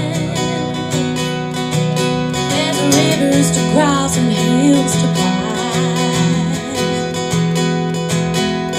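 Live acoustic duo: strummed acoustic-electric guitar with a singing voice over it, in a slow country-style song.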